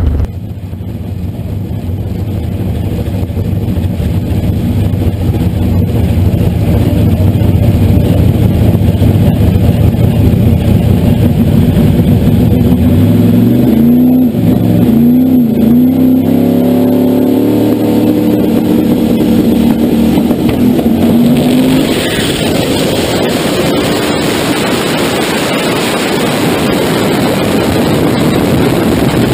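Turbocharged Mustang drag car's engine idling at the starting line, revved up and down a few times about halfway through and held at raised revs, then launching hard about three-quarters of the way in and running down the track, the sound turning into a loud rush.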